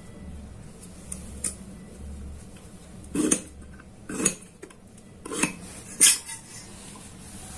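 A few light metallic clinks and knocks, about five, from a steel square being shifted and set against square hollow steel tubes. The loudest comes a little past the middle.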